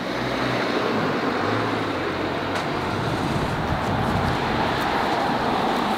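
Steady road traffic noise from vehicles running nearby.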